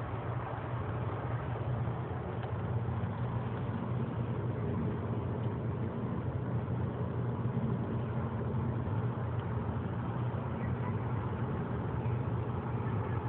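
A machine running with a steady low hum over a constant rushing noise, unchanging throughout.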